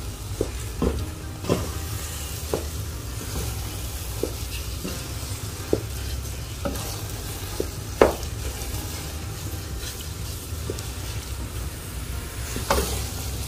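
Wooden spatula stirring thick, sticky glutinous rice (biko) in a stainless steel pot on the heat, with irregular scrapes and knocks against the pot, the loudest about eight seconds in and another near the end, over a steady low hum.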